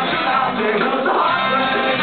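Ska-punk band playing live and loud: a horn section of trumpet and trombone over electric guitars and drums, with vocals.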